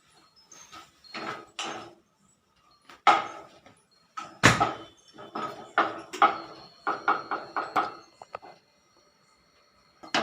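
Metal spatula stirring and scraping in a small metal kadai, a run of short strokes that set the pan ringing, with one sharp clank against the pan about four and a half seconds in.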